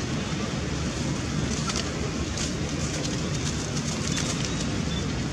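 Steady outdoor background rumble, with faint crackling rustles through the middle stretch.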